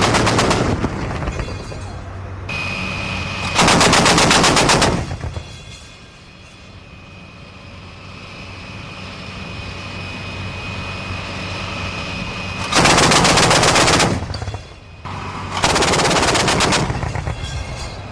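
Twin 35 mm Oerlikon autocannons of a Type 87 self-propelled anti-aircraft gun firing four short bursts of rapid shots, each about a second long: one at the start, one about four seconds in, and two close together late on. A steady low hum runs between the bursts.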